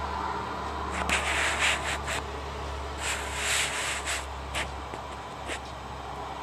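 Rubbing and scraping handling noise from a handheld camera, in a few short rough bursts with small clicks, over a steady low hum.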